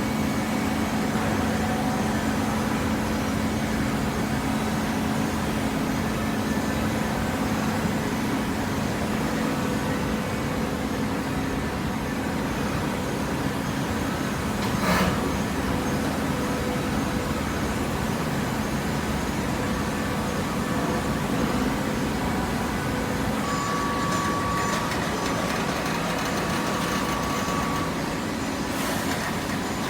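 Machinery running steadily with a low hum, with one short knock about halfway through.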